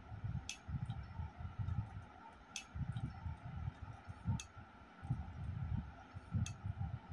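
Close-up chewing and mouth sounds of a person eating, in soft irregular low bursts, with a sharp click about every two seconds.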